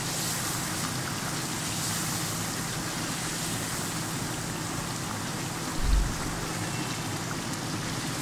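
Beef karahi masala sizzling steadily in a pan on the gas flame while it is stirred with a silicone spatula. A brief low thump about six seconds in.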